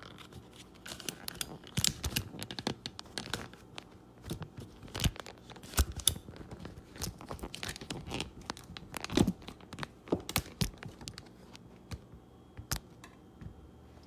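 Irregular clicks, knocks and scrapes of plastic kitchenware being handled on a counter: a small food processor being opened up, with a few sharp knocks.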